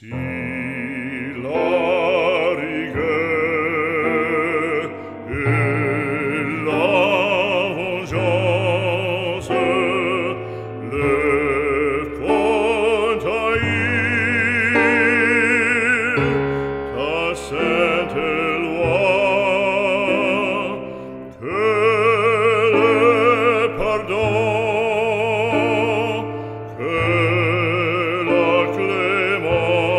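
Operatic singing with heavy vibrato over sustained low accompanying notes, as background music.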